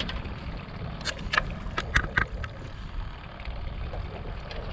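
Low, steady rumble of wind and water around a fishing boat on open lake water. A quick run of four or five sharp clicks comes between about one and two and a half seconds in.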